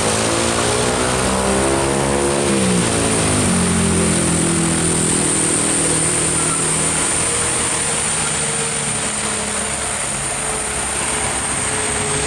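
Heavy truck's diesel engine labouring up a steep hill: its pitch climbs for about two and a half seconds, drops sharply at a gear change, then runs on lower and gradually fades. A steady high-pitched whine sits over it.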